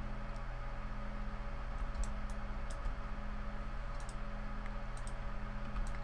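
Scattered sharp clicks of a computer mouse and keyboard, irregular and a few each second at most, over a steady low hum.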